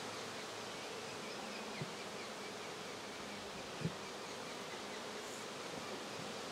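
Saskatraz honey bees buzzing steadily around an opened hive, with two soft knocks about two and four seconds in.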